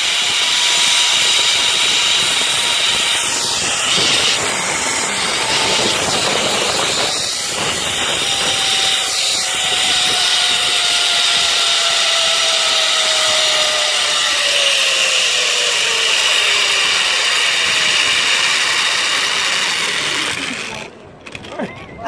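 Zipline trolley pulleys running along the steel cable, a loud steady whirring hiss with a faint whine that slowly falls in pitch as the rider slows, mixed with wind rushing past. The noise cuts off sharply near the end as the trolley reaches the landing platform.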